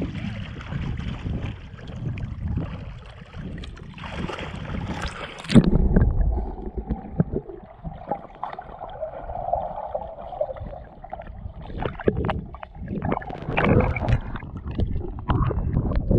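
Water sloshing and lapping against an action camera held at the surface of a lagoon. About five and a half seconds in, a thump and the sound turns muffled as the camera goes underwater. In the last few seconds, crackling splashes return as it breaks the surface again.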